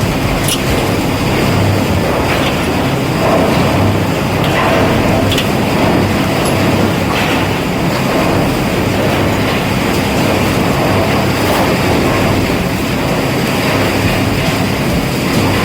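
Chip crusher running steadily: a constant loud machinery drone with scattered sharp knocks and clicks.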